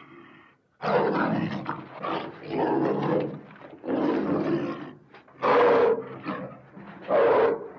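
Big-cat roars made as sound effects for Dinofelis, an extinct sabre-toothed cat: about six rough calls in a row, each under a second with short gaps, the two near the end loudest.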